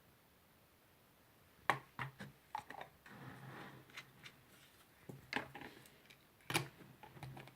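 Clicks and knocks of a small plastic glycerin bottle being picked up, opened and handled, starting about two seconds in, with a short hiss around the middle.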